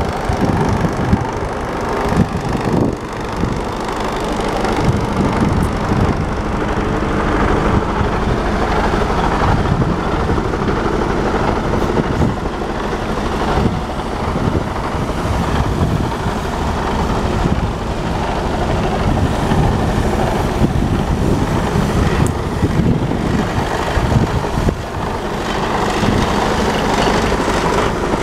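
Mercedes-Benz Actros 2545 tractor unit's diesel engine idling steadily.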